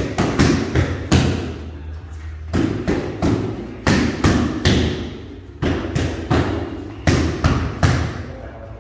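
Gloved or bare-fisted punches smacking into padded focus mitts, sharp slaps in quick runs of two or three strikes with short pauses between, from more than one pair striking at once.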